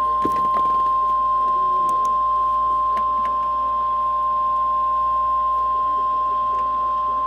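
NOAA Weather Radio 1050 Hz warning alarm tone: a single steady, unwavering high beep held at one pitch, the signal that a warning message is about to be broadcast.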